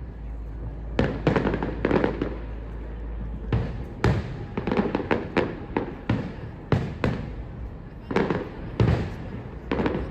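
Fireworks exploding overhead: a string of sharp bangs, about a dozen in ten seconds, some coming in quick clusters, each followed by a rumbling echo.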